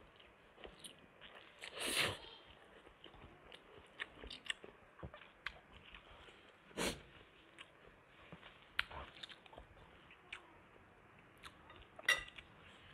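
Faint close-miked chewing of spicy instant noodles and fried eggs, with small clicks of a metal fork on a ceramic plate. Two louder, short, noisy sounds come about two and seven seconds in.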